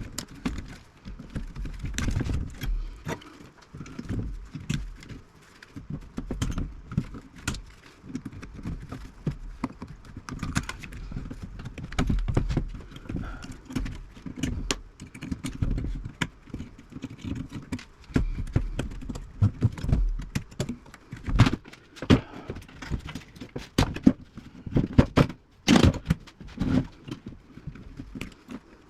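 Hand tools cutting apart the wired chassis of a 1950s Philco tube radio: an irregular run of snips, clicks and knocks as wires and small components are cut out, with metal parts rattling against the chassis. A few sharper clicks come about three-quarters of the way through.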